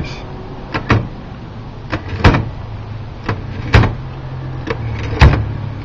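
L.C. Smith manual typewriter being worked by hand: about eight sharp, irregularly spaced mechanical clicks and clacks of keys and carriage parts, the loudest a little past two seconds in, near four seconds and past five seconds. A faint steady low hum runs underneath.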